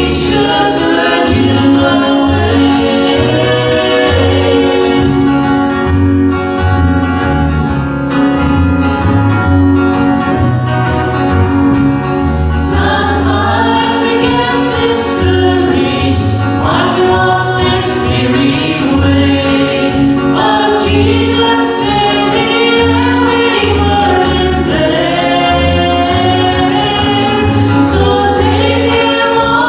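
A gospel vocal group singing a song in harmony over a steady, rhythmic bass accompaniment.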